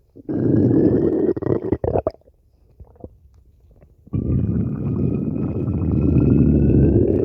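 Stomach growling in two long, loud rumbles: the first lasts about two seconds, and the second starts about four seconds in and lasts about three. Each has a faint rising whine over the gurgling.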